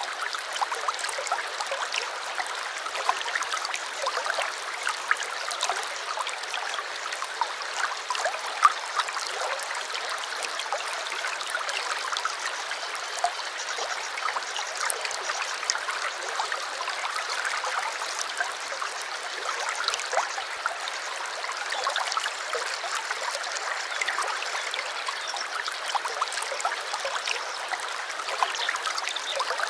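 A shallow stream babbling and trickling steadily over stones, with many small splashes and drips throughout.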